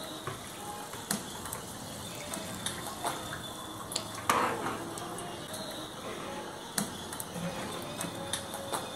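Water poured from a plastic bowl into a clay pot of mole, with a metal spoon scraping and clicking against the bowl as it is emptied. The clicks come scattered throughout, the loudest about four seconds in.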